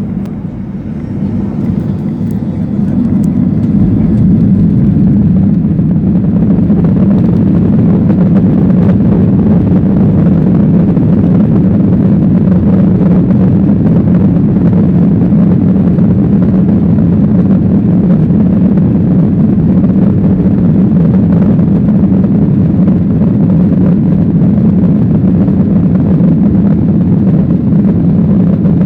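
Boeing 737-800's CFM56-7B jet engines spooling up over the first few seconds to take-off thrust, then a steady, loud, low rumble through the take-off roll.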